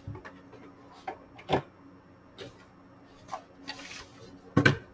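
Handling noise from an opened 8-track player on a wooden workbench: a handful of scattered clicks and knocks as the metal chassis, its wooden support blocks and the power cord are moved about, the loudest knock near the end. A faint steady hum runs underneath.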